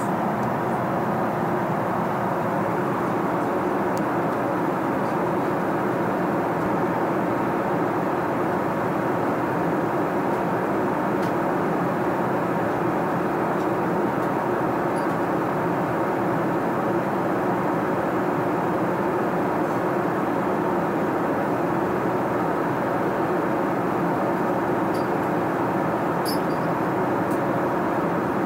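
Steady cabin noise of an Airbus A380 airliner in cruise, an even rushing hum, with a few faint clicks.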